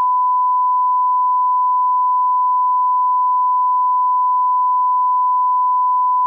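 A single steady beep tone at about 1 kHz, held unbroken for several seconds, then cut off sharply: a censor bleep masking redacted speech.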